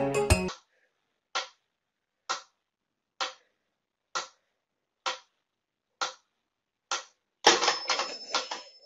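Mechanical pendulum metronome ticking steadily, a bit under once a second. About seven and a half seconds in, a louder burst of scuffling noise breaks in for about a second.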